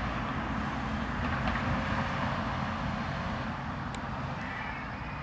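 Steady wash of road traffic noise from passing cars, swelling slightly near the middle.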